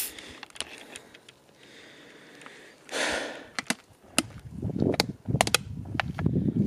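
Thin plastic water bottle being opened and drunk from: a sharp click at the start, then a run of clicks and crackles of the plastic as it is tipped up, over a rough rushing of water pouring from it.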